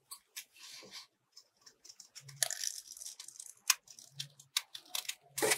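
Scissors cutting through a folded green craft sheet: a series of short, crunchy snips, with several sharp clicks of the blades in the second half.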